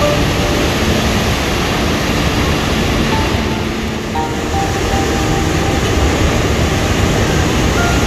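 Heavy swell waves breaking over rocks in a loud, continuous roar of surf. This is typhoon-driven high surf. A faint melody of background music sits beneath it.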